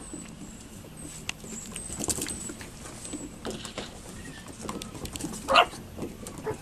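Yorkiepoo puppies on a wooden deck: one short, sharp puppy yip about five and a half seconds in, with scattered light taps as they scamper over the boards.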